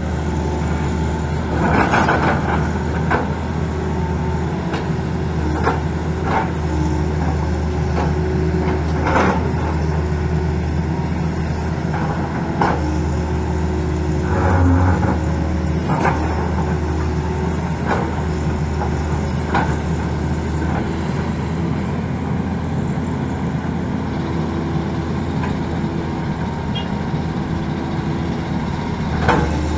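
Tata Hitachi excavator's diesel engine running steadily, with a dozen or so sharp knocks and scrapes at irregular intervals as the bucket cuts into the road.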